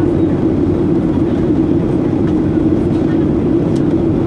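Steady cabin noise inside a Boeing 737-800 in descent: the drone of its CFM56-7B engines and the rush of air, with a strong low hum.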